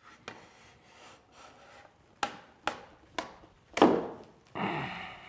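Hand-tool work on wood: a few soft scraping strokes, then four sharp knocks on wood, the last the loudest and deepest, followed by a short rasping swish.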